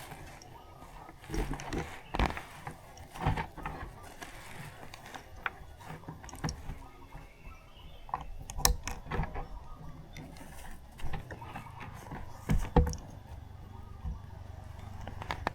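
Scattered mechanical clicks, knocks and rattles at irregular intervals over a faint low rumble, with no engine running steadily.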